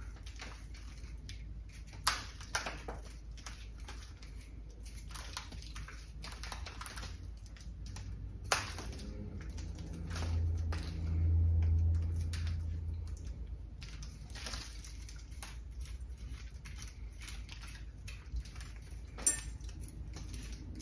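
Soft, irregular scratching and rustling of a small hand tool combing through a ficus ginseng's root ball, loosening soil from the roots, with a few sharper ticks. A low hum rises for a few seconds about halfway through.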